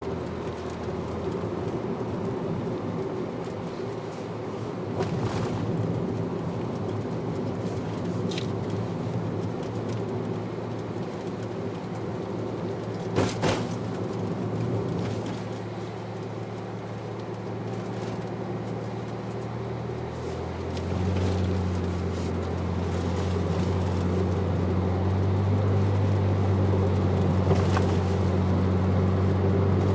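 Car engine and road noise heard from inside the cabin while driving, a steady low hum; about twenty seconds in the engine note drops lower and grows louder. Two short knocks about thirteen seconds in.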